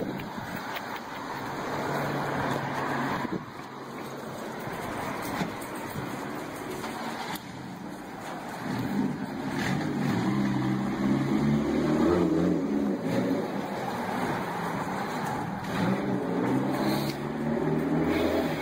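Street traffic: cars going by on a town street, with a low engine hum that comes in and gets louder about halfway through.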